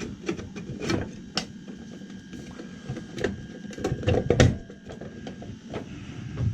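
Irregular clicks and knocks of hand tools and small metal parts being handled, loudest about four seconds in, over a faint steady hum.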